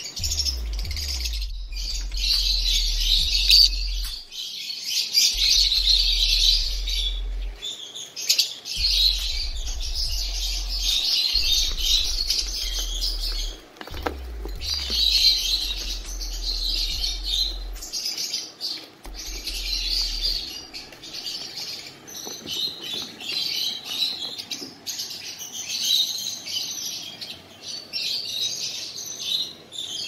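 A flock of caged lovebirds chattering and chirping, high-pitched calls coming in busy bouts of a few seconds with brief pauses between.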